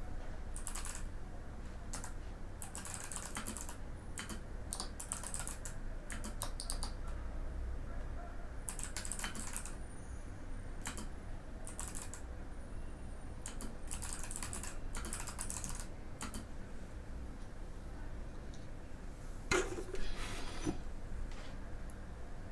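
Typing on a Mikit M65 mechanical keyboard with Kailh Box White clicky switches: quick runs of keystrokes broken by short pauses, with a louder clack near the end.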